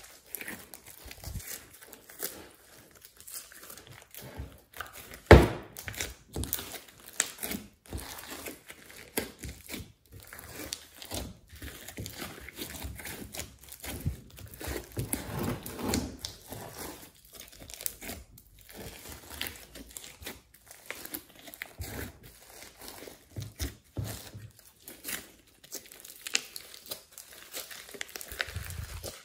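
Hands squishing, squeezing and stretching a large mass of glossy slime mixed with clay and glitter. It makes a run of irregular sticky crackles and pops, with one much louder pop about five seconds in.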